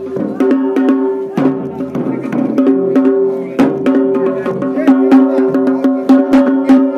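Traditional Himachali procession music: dhol and hand drums beaten in a quick, steady rhythm under a held, droning melody from wind instruments.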